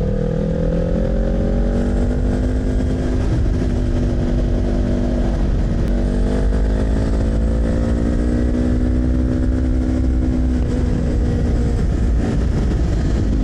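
Kawasaki Z400 parallel-twin motorcycle engine pulling under throttle while riding, its pitch climbing slowly, dipping about five and a half seconds in, then climbing again. Wind noise rumbles on the helmet microphone underneath.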